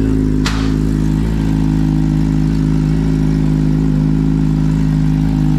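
2022 Suzuki Hayabusa's 1340 cc inline-four idling steadily through a full titanium Brock's exhaust, a little warmed up, with a deep bass rumble. A brief click about half a second in.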